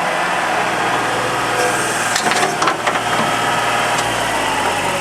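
New Holland LS180 skid steer loader's diesel engine running steadily while the machine works, with a few sharp clatters about two to three seconds in.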